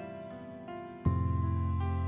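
Soft, slow background music with sustained piano-like notes. A deep bass note enters about a second in and the music gets louder.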